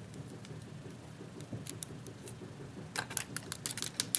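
Light metallic clicks and ticks of tweezers and small lock parts being handled while pins are worked out of a disassembled lock's chambers: a few scattered clicks, then a quick run of them near the end, over a faint low hum.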